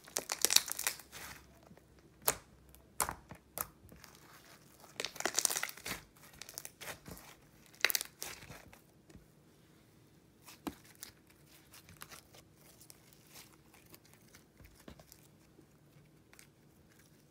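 Glossy glitter slime being squished and pressed between hands, making wet clicky crackles and pops. The crackles come in dense bursts in the first second and around five to six seconds in, then thin to scattered faint clicks.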